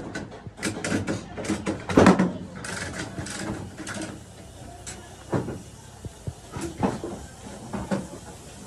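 A run of irregular knocks and clicks, with louder thuds about two seconds in and near the end.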